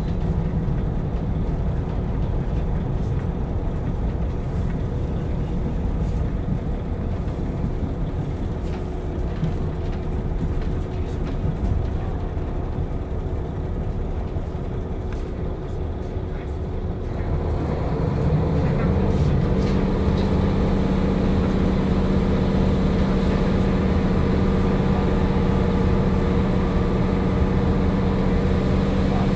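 KiHa 40 diesel railcar running, a steady low rumble of wheels and engine. A little over halfway through, the engine note comes up into a louder, steady drone that holds to the end.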